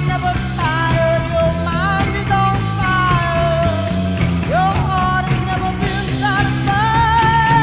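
Psychedelic rock from 1968, in a stretch between sung lines: melody lines that bend and glide over a stepping bass line and a steady band accompaniment.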